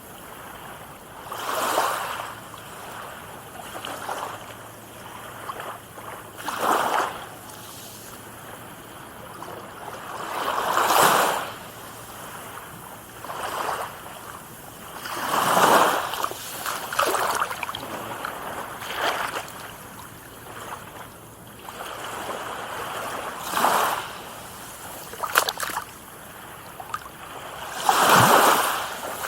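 Small waves breaking and washing onto a shore, a swell of surf every four to five seconds that rises and falls away within a second or two.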